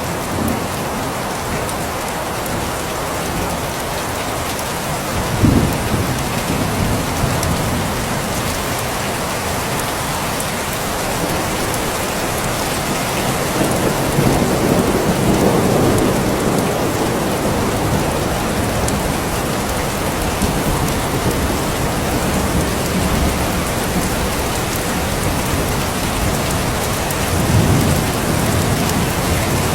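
Steady rain falling, with low rolls of thunder: a short sudden rumble about five seconds in, a longer swell midway and another near the end.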